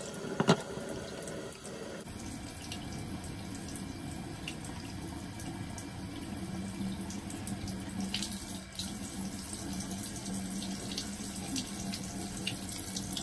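Bathroom sink tap running, a steady rush of water into the basin, with one sharp knock about half a second in.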